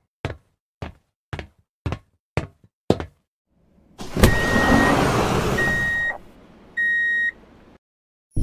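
Sci-fi door sound effects: six heavy knocks about every half second, then a sharp impact and a loud hiss as a sliding door opens, with three steady electronic beeps.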